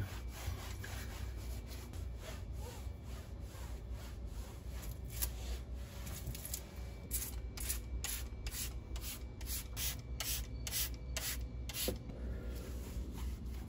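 A cloth rubbing across a stainless steel gas stovetop. Then, from about halfway in, a quick run of short hissing squirts from a trigger spray bottle, about two a second.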